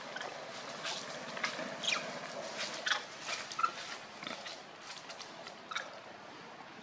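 Many short, high-pitched animal calls and squeaks, scattered irregularly and loudest around two to three seconds in, over a faint steady outdoor background.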